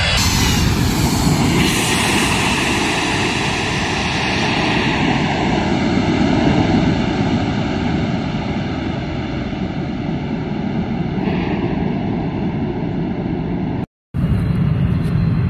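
Boeing 727 freighter's three Pratt & Whitney JT8D turbofans at takeoff power as it runs down the runway and climbs away. It makes a loud, steady jet roar with a whine that drops in pitch as the plane passes. Near the end the sound cuts out for an instant and then comes back.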